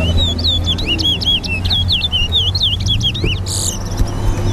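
Towa towa (chestnut-bellied seed finch) singing a fast, warbling run of whistled notes that sweep up and down, lasting about three and a half seconds and ending in a brief hiss.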